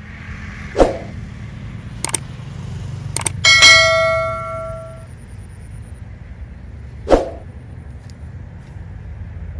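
Several sharp knocks and one loud metallic clang that rings on in clear tones for about a second and a half, over a low steady rumble.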